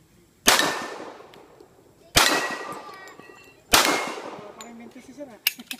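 Three handgun shots about a second and a half apart, each trailing off in a long echo, with steel plate targets ringing briefly after the hits. A few quick sharp clicks follow near the end.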